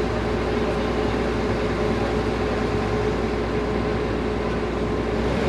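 Diesel engine of a JCB excavator running steadily with an even low hum; its note shifts right at the end.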